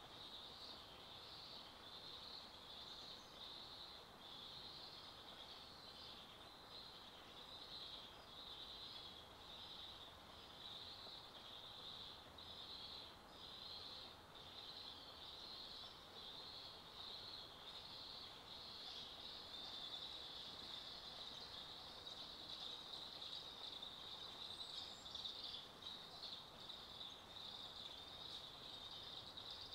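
Faint woodland ambience filled by a steady, high-pitched chirring that pulses slightly and grows a little louder about two-thirds of the way through.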